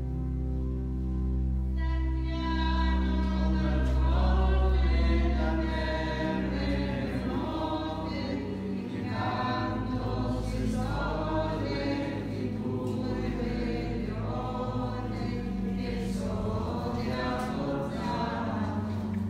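A group of voices singing a hymn over long-held low instrumental notes; the singing comes in about two seconds in.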